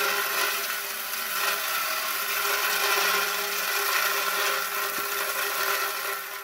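Water running from a hose into a poultry waterer: a steady rushing hiss with a steady hum-like tone over it.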